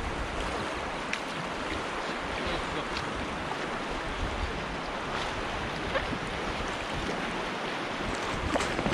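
Steady rush of river rapids water around a packraft, with a few faint taps scattered through it.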